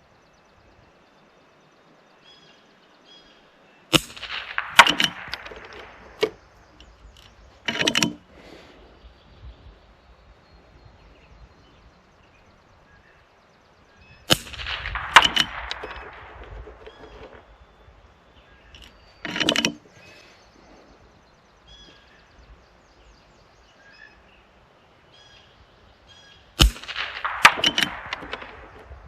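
Three shots from a custom .22LR benchrest rifle, about ten to twelve seconds apart, each a sharp crack with a short trailing tail. A few seconds after each of the first two shots comes a brief mechanical clatter as the bolt is worked for the next round.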